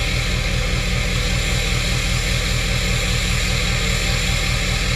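Ford 6.7 L Power Stroke V8 turbo-diesel idling steadily through a freshly installed 5-inch downpipe-back exhaust with the emissions equipment deleted: a deep, even pulse with a steady hiss above it.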